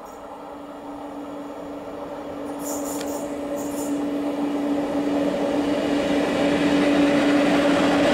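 PKP EU07 electric locomotive hauling a passenger train approaches and draws alongside, growing steadily louder. It gives a steady humming tone over the rumble of the running gear, with two brief high hisses about three and four seconds in.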